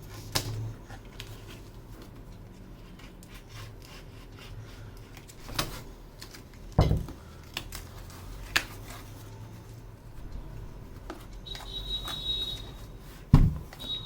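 Objects being handled on a hard surface: scattered light clicks and taps, with two louder knocks about seven and thirteen seconds in and a short high squeak near the end.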